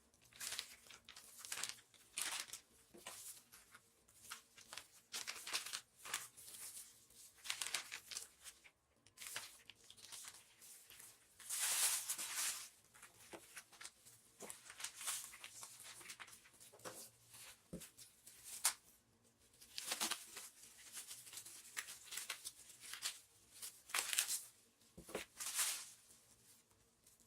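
Plastic packaging crinkling and tearing in short, irregular bursts, as when meat is unwrapped and bagged into portions, with the longest and loudest stretch about twelve seconds in.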